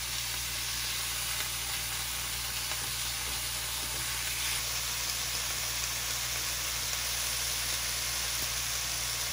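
Beef steaks frying in a hot non-stick pan, a steady, even sizzle.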